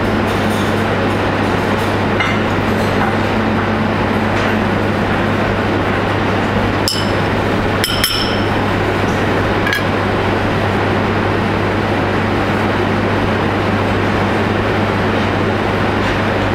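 Steady hum of kitchen ventilation with a constant low drone. A few light clinks of utensils against china plates come about seven to ten seconds in.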